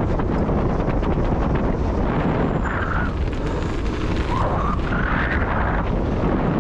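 Wind buffeting the mountain bike's camera microphone and knobbly tyres rumbling over a dirt-and-gravel trail at speed, a steady loud rush. A few brief squeals rise and fall partway through.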